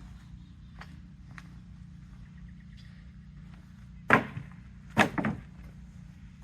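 Two heavy wooden thuds about a second apart, the second followed by a short clattering rattle: sawn log ends being thrown onto a loaded wood cart. A low steady hum runs underneath.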